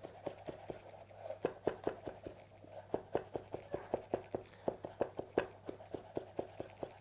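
Kitchen knife finely chopping a garlic clove on a cutting board: rapid, regular knocks of the blade on the board, about five a second.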